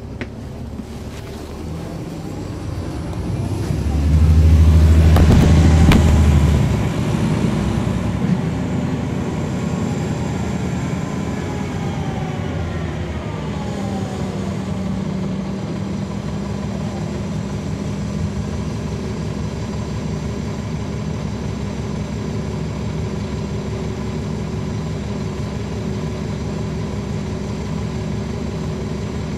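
Caterpillar C13 ACERT diesel engine and ZF Ecomat 6HP594C automatic transmission of a 2009 NABI 40-foot transit bus, heard from the rear seats inside the bus. The engine builds to its loudest about four to six seconds in, then eases off. A whine glides up and down in pitch for several seconds, and then the bus runs steadily.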